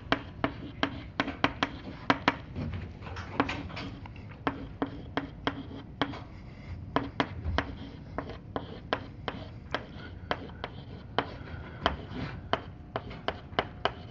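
Chalk writing on a blackboard: a run of sharp, irregular taps, a few a second, as the chalk strikes the board while writing.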